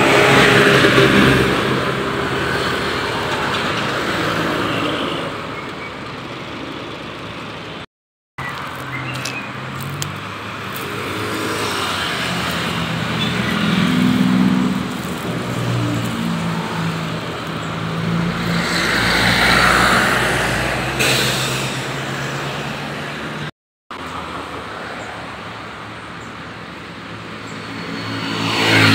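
Bus 'telolet basuri' multi-tone air horn playing a tune of stepped notes over bus engine and road noise. The sound drops out briefly twice, about 8 and 24 seconds in, between clips.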